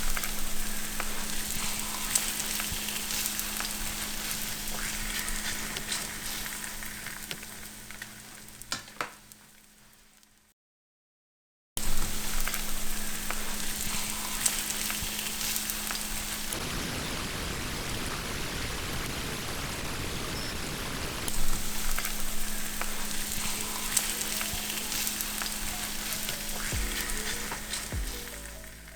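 Kimchi pancake batter frying in hot oil in a pan: a steady crackling sizzle, the sound said to be like rain. It cuts out for about a second partway through, then carries on.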